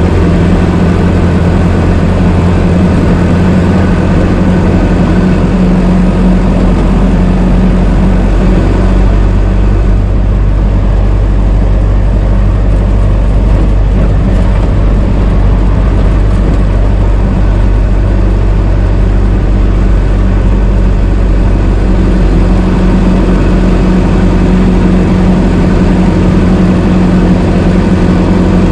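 Old car engine running steadily with a low, even note. From about eight to twenty-two seconds in the sound turns rougher and noisier, then settles back to the steady note.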